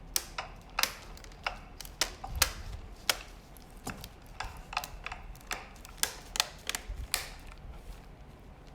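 Plastic laptop screen bezel being pressed onto the display lid, its edge clips snapping into place in a series of sharp, irregular clicks.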